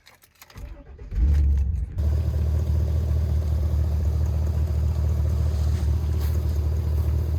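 An engine starts up and settles into a steady, even running note.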